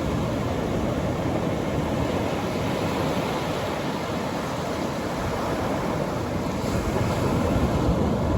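Atlantic Ocean surf breaking on a beach: a steady rush of waves that swells slightly near the end.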